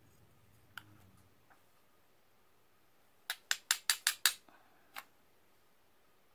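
Plastic spoon tapping against a clear plastic tub while scooping fine glitter. There is one light tap about a second in, a quick run of six taps around three to four seconds in, and one more tap a moment later.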